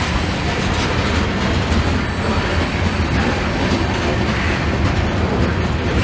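Covered hopper cars of a loaded grain freight train rolling past, a steady rumble of steel wheels on rail.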